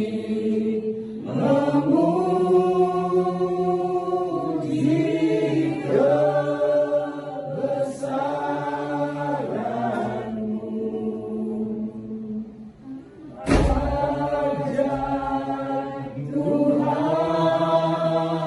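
Voices chanting in long held notes that slide from one pitch to the next over a steady low drone, in phrases a few seconds long. Partway through there is a short dip, then a single sharp thump.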